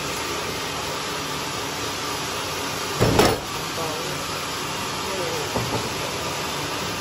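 Sawmill machinery running with a steady noise. About three seconds in comes a single heavy wooden thud as a coconut log is rolled onto the bandsaw carriage, and a couple of lighter knocks follow later.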